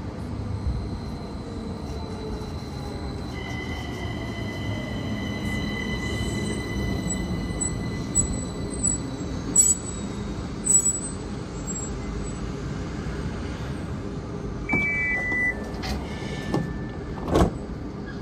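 Tacoma Link light rail vehicle running on street track: a steady low rumble, with thin high-pitched squeals and whines over it for several seconds around the middle. A short stepped two-note tone sounds about fifteen seconds in, and a single sharp knock follows shortly after.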